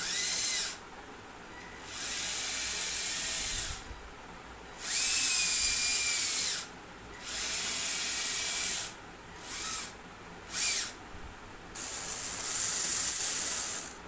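Small electric motors driving the arm of a homemade RC excavator whine in short bursts as the boom and bucket move, about seven runs of one to two seconds each with brief pauses between them.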